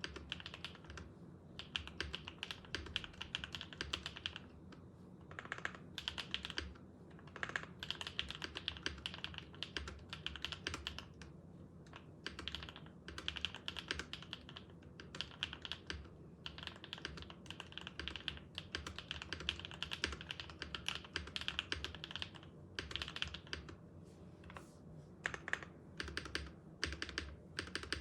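Typing on a MoonGeek M1 mechanical keyboard fitted with Gateron PureBerry switches, lubed with 205g0 and 105 and filmed: fast, even key clacks in runs broken by short pauses.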